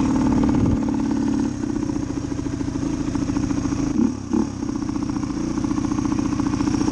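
Suzuki DR250 dirt bike's single-cylinder four-stroke engine running under way, easing off about a second and a half in, with two short loud bursts around the middle.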